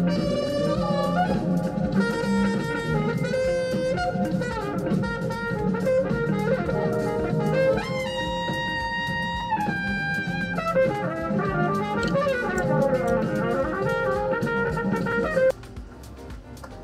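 Live jazz band playing: trumpets lead over a drum kit, electric bass and keyboards. The music stops abruptly a little before the end, giving way to a much quieter sound.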